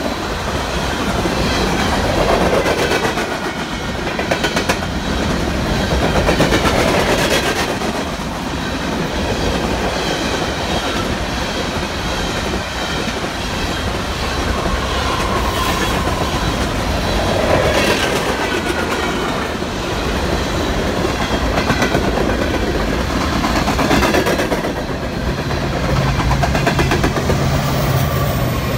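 Loaded coal hopper cars rolling past at speed: a steady heavy rumble of wheels on rail, with faint squealing tones now and then. Near the end the low drone of diesel locomotive engines comes in as locomotives pass.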